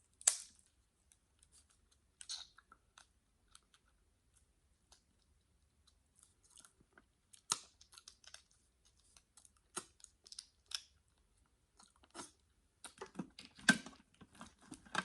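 Close-miked eating of shellfish: chewing, with sharp clicks and cracks scattered through and a busier stretch of chewing and crackling near the end.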